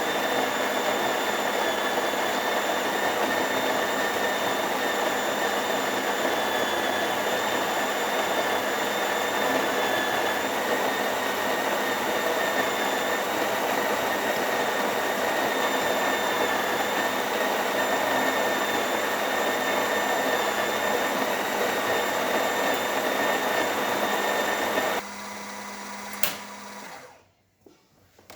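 Electric coffee grinder running steadily, grinding coffee for a double espresso shot. It cuts off near the end, runs on more quietly for a moment with a single click, then stops.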